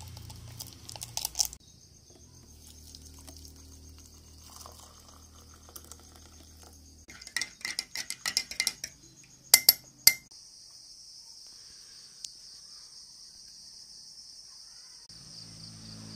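Metal spoon stirring coffee in a ceramic mug, clinking against the side in a quick run of ringing strikes and ending with two louder taps. A few lighter ticks come about a second in as instant coffee is emptied from a sachet into the mug.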